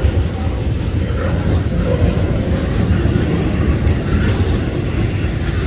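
Double-stack intermodal freight train rolling past: the steel wheels of its container well cars running on the rails make a steady, loud rumble.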